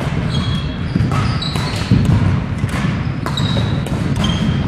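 Badminton doubles play: sharp clicks of rackets hitting the shuttlecock and quick footfalls on a wooden gym floor. Sneakers give several short, high squeaks on the boards.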